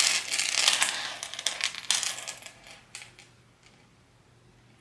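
Gold-tone metal purse strap chain clinking and jingling as it is handled, a dense run of small metallic clicks that dies away about three seconds in.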